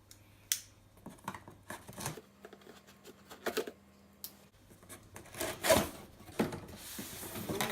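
Cardboard box being opened by hand: scattered clicks, scrapes and rustles of cardboard flaps and packaging, with one louder knock about six seconds in.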